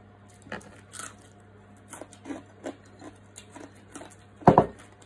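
Mouth-close chewing of crispy roasted pork knuckle skin: irregular crackly crunches, several a second, with one louder short sound about four and a half seconds in.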